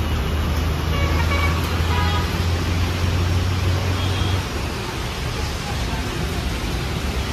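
Heavy rain falling steadily, with a low engine hum that stops about four seconds in.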